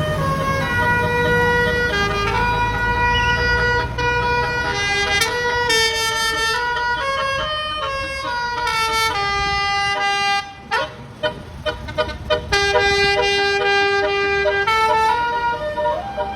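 Telolet bus horn: a set of musical air horns on a bus playing a tune of held notes that step from pitch to pitch, with the engine running underneath. About two-thirds of the way in it breaks into a quick run of short toots, then goes back to held notes.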